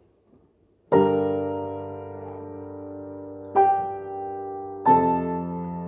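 Grand piano playing three loud, full chords: one about a second in, another about a second and a half later, and a third just before the end. Each is held and left to ring, slowly fading.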